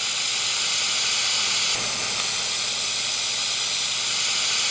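Handheld fiber laser welder laying a butt weld with stainless steel filler wire on galvanized steel at 1000 watts: a steady hiss of the weld and its gas flow, a little brighter about two seconds in.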